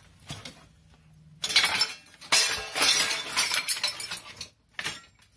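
Glass and ceramic housewares clinking and clattering as a box is rummaged through, starting about a second and a half in and lasting about three seconds, with a short burst again near the end.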